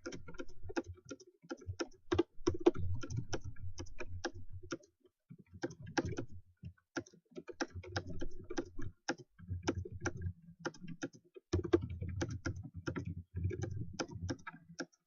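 Computer keyboard keys being typed on fast in rapid, uneven runs of clicks with a few brief pauses, a fast typist taking a typing test at around 126 words per minute.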